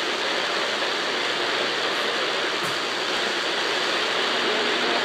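CB radio receiver static: a steady, even hiss from the speaker between transmissions, with no signal coming in.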